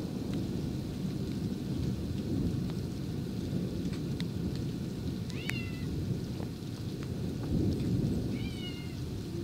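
Low, rolling thunder rumbles on under rain, swelling near the end. A cat meows briefly twice, about halfway through and again near the end.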